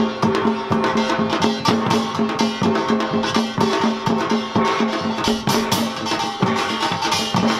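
Samdo seated samulnori ensemble playing a fast, dense rhythm: a small kkwaenggwari gong, janggu hourglass drums and a ringing jing gong struck together.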